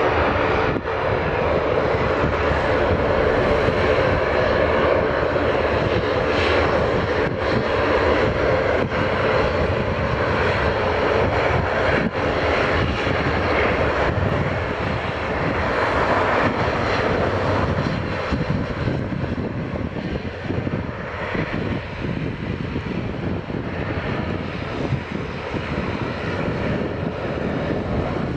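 Fokker 50 twin-turboprop (Pratt & Whitney PW125B engines, six-blade propellers) running on the runway: a steady loud drone with a strong propeller hum, which eases after about 18 seconds as the aircraft moves away.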